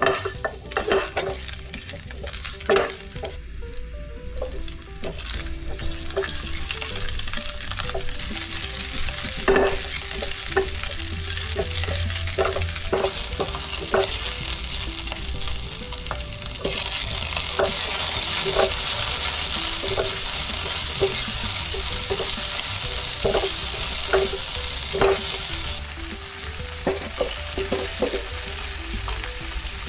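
Food frying and sizzling in a pan while a metal utensil stirs it, knocking against the pan again and again. The sizzle grows louder in the first few seconds and then holds steady.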